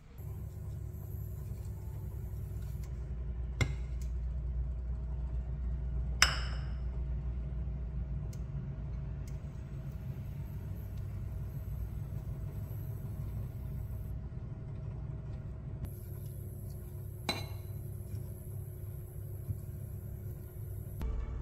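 A few sharp metallic clinks of a spoon against a small stainless steel saucepan on an induction cooktop, the clearest about six seconds in with a short ring, over a steady low hum.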